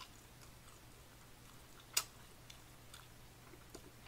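Quiet room with a low steady hum and a few faint, sharp clicks; the loudest click comes about two seconds in.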